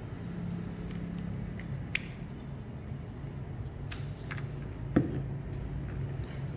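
Small tools clicking and tapping against a phone on a workbench, a few light ticks and one sharper knock about five seconds in, over a steady low hum.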